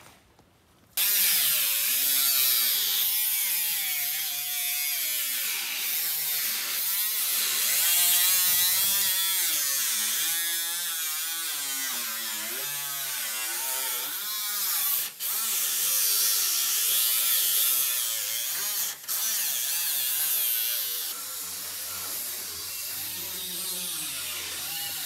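Angle grinder cutting through the sheet-metal roof of a pickup cab, its whine wavering up and down as the wheel bites in and eases off. It starts about a second in and cuts out briefly twice past the middle.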